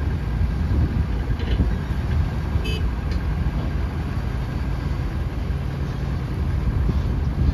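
Sumitomo SH250-6 hydraulic excavator's diesel engine running steadily under load as the machine swings a full bucket of soil. A brief high squeak comes about two and a half seconds in.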